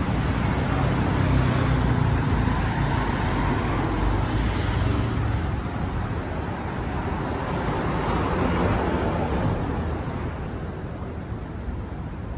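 City street traffic: a steady rumble of passing vehicles that swells several times as they go by, then eases a little near the end.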